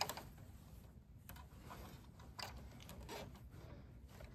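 Faint, scattered clicks and rustles of a small plastic zip tie being threaded and worked around a bundle of wires.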